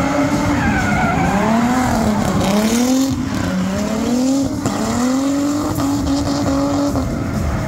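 A drifting car's engine revving up and down over and over as the throttle is worked, with its tyres squealing and skidding across the pavement.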